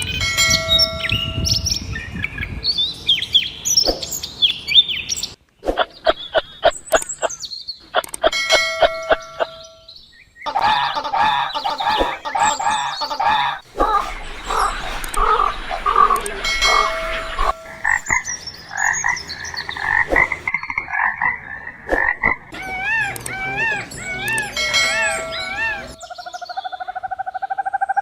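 A run of short animal-call clips cut one after another, each a different kind of call: repeated croaks, chirps and high pitched cries.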